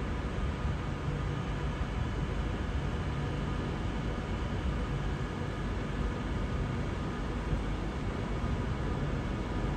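Avanti West Coast Class 390 Pendolino electric train pulling out of the terminus at low speed: a steady rumble of wheels on the rails with a faint steady whine.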